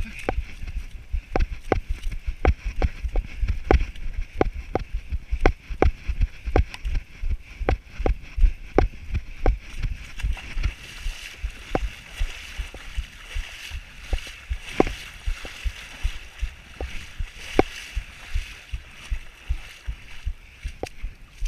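A runner's footfalls jolting a body-worn camera, about two to three thuds a second, over a steady high hiss that grows stronger in the second half.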